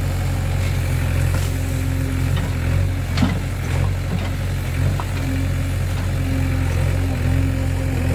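JCB 3DX backhoe loader's diesel engine running steadily, with a sharp knock about three seconds in and a lighter one about five seconds in.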